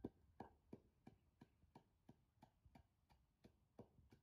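Wooden pestle pounding in a mortar, crushing salt and chillies for chilli salt: a steady run of dull knocks, about three a second, the first the loudest.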